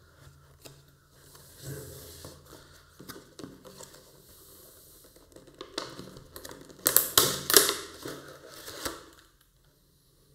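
A cardboard box being opened by hand and a Bluetooth speaker and its packaging pulled out: irregular rustling, scraping and tapping of cardboard, loudest in a flurry about seven to nine seconds in.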